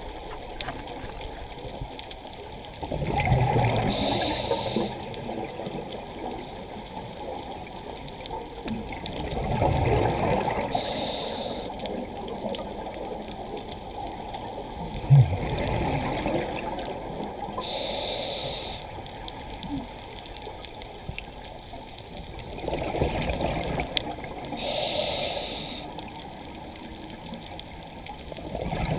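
Underwater sound of a scuba diver breathing through a regulator: a hiss of inhaling, then a rush of exhaled bubbles, about every six to seven seconds, four breaths in all, over a steady watery hiss.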